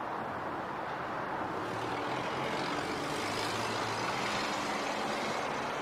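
City street traffic, with a motor vehicle passing: engine hum and road noise swell from about a second and a half in, peak midway and ease off near the end.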